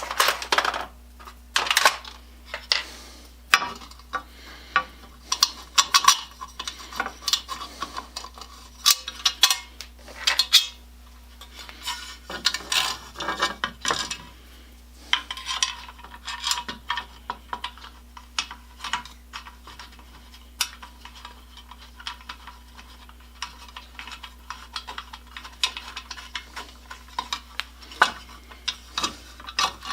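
Small metal parts and hand tools being handled on a workbench: many quick clinks and clicks, with a stretch of rummaging and scraping about twelve seconds in.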